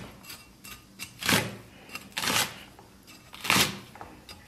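Chinese cleaver chopping through long green string peppers onto a wooden stump chopping block: a series of sharp knocks, the three loudest about a second apart, with fainter taps between.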